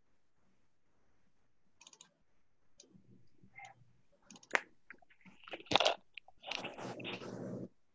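Scattered small clicks, with a sharp louder click about six seconds in, followed by about a second of rustling noise.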